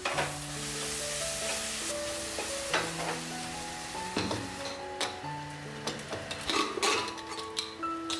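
Food sizzling in a stainless steel kadai on a gas flame while a wooden spatula scrapes and knocks against the pan as it is stirred; the sizzle eases about halfway through while the stirring strokes go on. Soft background music plays underneath.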